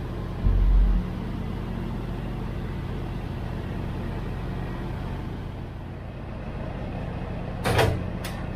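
Kenworth W900 semi truck's diesel engine running low and steady as it slowly moves a refrigerated trailer. There is a deep thump about half a second in and a short sharp burst of noise near the end.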